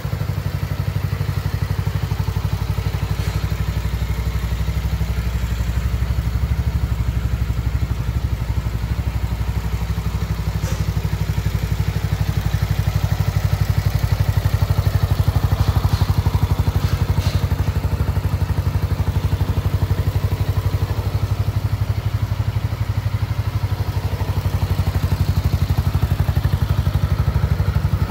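BMW C400X scooter's single-cylinder engine idling steadily, with a few faint ticks.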